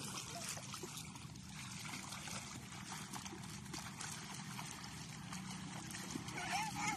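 Shallow seawater splashing and trickling as children wade and kick through it, a light, even water noise with small scattered splashes.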